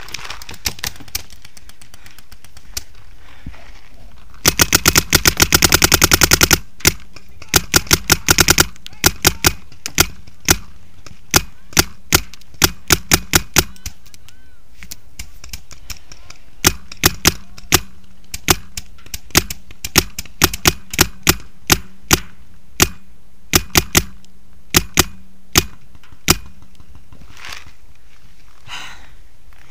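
Paintball marker firing: a fast string of shots about four seconds in, a second short string soon after, then single shots and pairs at irregular intervals until near the end.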